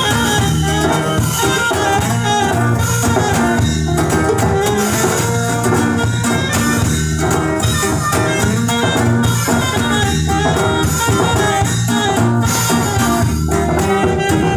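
Norteño band with saxophone playing a huapango, guitar and drum kit keeping a steady beat under the melody.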